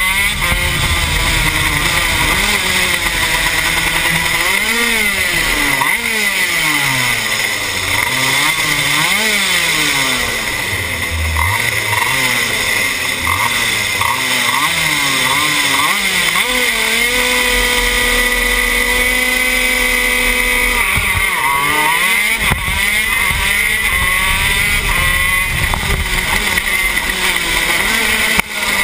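TM K9c 125cc two-stroke shifter kart engine racing, heard from on board: the revs climb and drop again and again through the gear changes and corners, with a few seconds of steady revs about two-thirds of the way in. Other karts' engines mix in close by.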